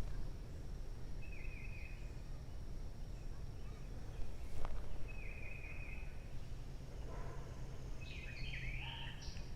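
Birds calling: a short call repeated every three to four seconds, with a more varied call near the end, over a steady low hum.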